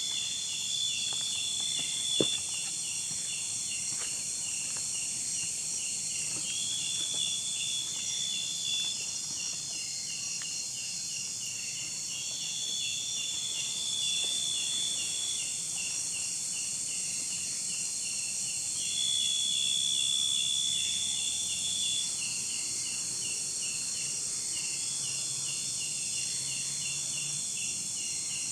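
Insects calling: a steady high hiss with a fast run of high chirps underneath. Every six seconds or so one call holds a single high tone for about two seconds. One faint short knock comes about two seconds in.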